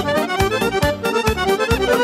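Instrumental Romanian folk-style (etno) band music: a clarinet and an accordion-like keyboard melody over a steady drum beat.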